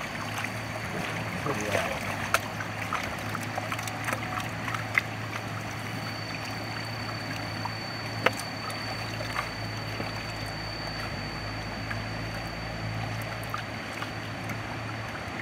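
Water sloshing and trickling as a wooden gold pan is dipped and tilted in a shallow river, washing down the last black-sand concentrate, with a few light clicks of grit. A steady low engine hum runs underneath.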